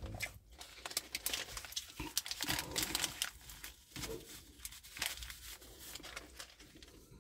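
Paper burger wrapper crinkling and rustling in the hands in irregular crackles, as a brisket burger is bitten into and chewed.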